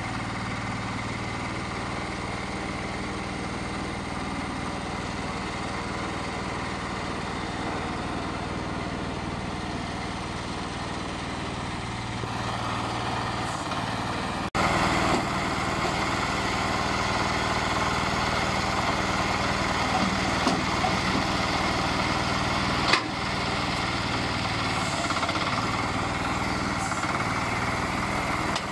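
Small diesel engine of a hydraulic brick press running steadily and driving its hydraulic pump. It gets louder about halfway through, and there is a single sharp knock later on.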